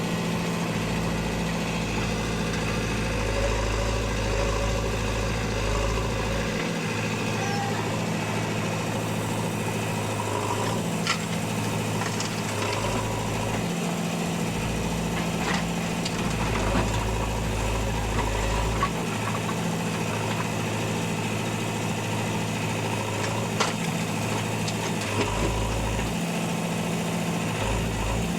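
A heavy diesel engine running steadily near idle. Its deepest note drops away and comes back every several seconds, and there are a few sharp clanks.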